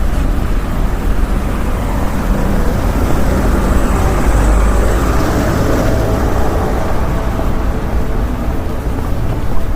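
Street traffic: a steady, deep rumble of passing vehicles that swells briefly about halfway through as one goes by.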